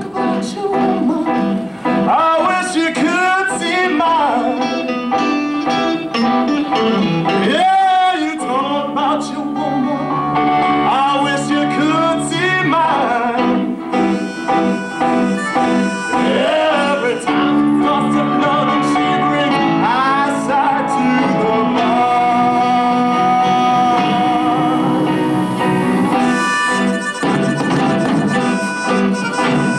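A man singing a bluesy rock number with a live band, heard from the audience in a theatre.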